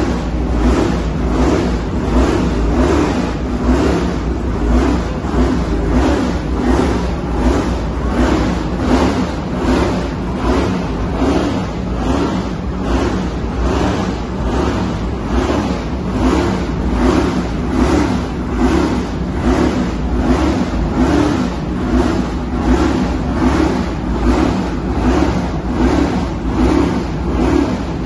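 Racing car engines running in a pit lane, cars idling and pulling away, with an even repeating pulse in the sound.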